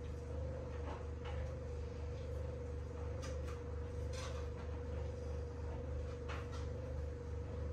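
Steady low hum, with a few light clicks and taps of food being handled on a kitchen worktop.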